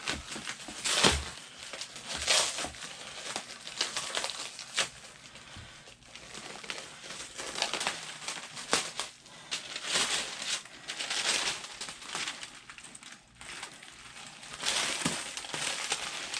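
Packing paper being pulled off and crumpled by hand as it is unwrapped from a replica championship belt. The crinkling comes in uneven bursts with sharp crackles throughout.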